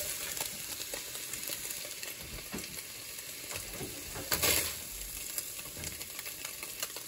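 Skillet sizzling steadily, a fine crackling hiss with scattered small ticks, and one brief louder rush of noise about four and a half seconds in.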